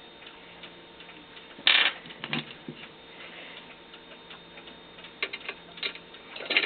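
Scattered light clicks and taps of small metal parts being handled at a drill press, with one louder brief scrape about two seconds in, over a clock ticking in the room.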